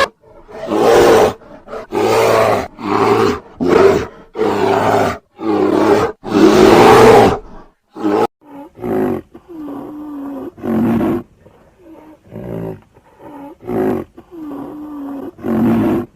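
A big cat roaring in a run of about a dozen calls. The first several are long and loud, and the later ones are shorter and quieter.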